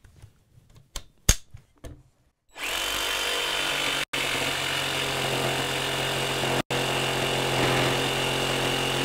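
Clicks as a jigsaw blade is seated in a DeWalt jigsaw's clamp. Then, about two and a half seconds in, the jigsaw starts and runs steadily, with two brief breaks, as a Diablo reverse-cut wood blade saws through a board. The blade struggles, making it a lot harder to cut.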